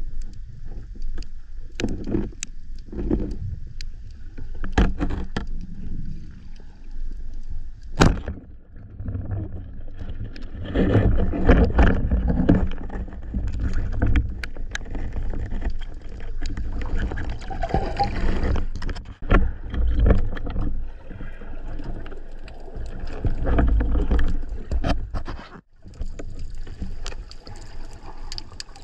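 Underwater sound through a diver's camera: a low, rumbling rush of moving water with many scattered sharp clicks and knocks.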